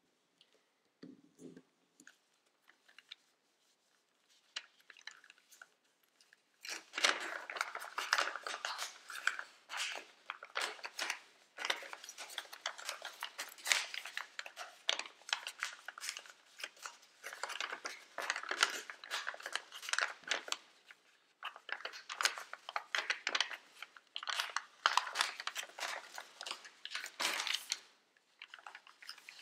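A sheet of origami paper being handled and folded: crinkling, rustling and crisp creasing. It is mostly quiet at first, and dense crinkling starts about seven seconds in, with short pauses between folds.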